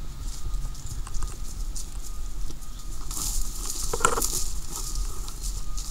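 Footsteps crunching through grass and dry fallen leaves, with short crackles that get busier about halfway through and one louder burst about four seconds in, over a steady low rumble.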